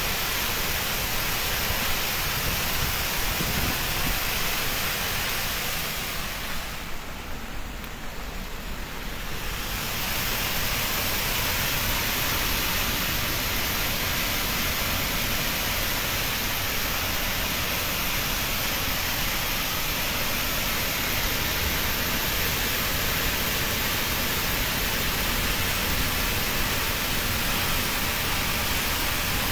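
Water from a dam's open sluice valve jetting out and crashing into the river below: a steady, dense rush of noise. About six seconds in it turns briefly quieter and duller, then returns to full strength.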